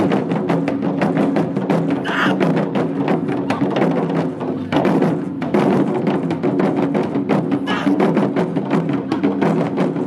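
Taiko drum ensemble of barrel drums playing together in a fast, dense rhythm of strikes.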